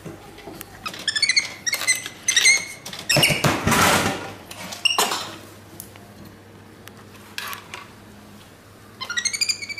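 A young monkey's high squeaky calls: a quick string of short chirps about a second in, and a run of falling squeals near the end. A loud rustling clatter comes in the middle.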